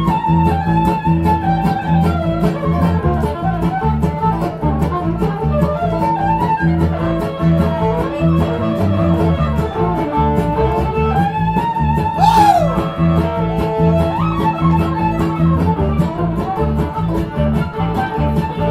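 Live bluegrass band playing an instrumental passage: a fiddle holds long bowed notes with vibrato over fast, even picking on plucked strings and a steady bass line. About twelve seconds in, a note slides sharply down.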